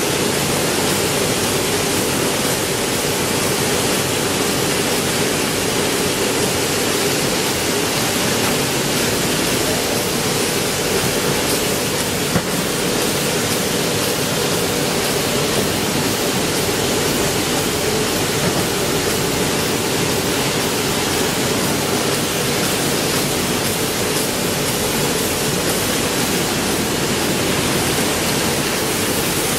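Heidelberg Speedmaster SM 102 two-unit sheetfed offset press running at steady speed: a loud, even mechanical rush with a hum in the middle register and one brief knock about twelve seconds in.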